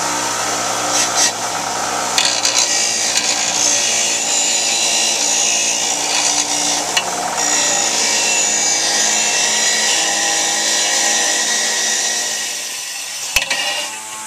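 A 6-inch electric bench grinder runs with a steady motor hum while a rusty drawknife blade is pressed against the spinning wheel, giving a rough hissing, scraping grind as the rust is taken off. The grinding eases off near the end, and there is one sharp click.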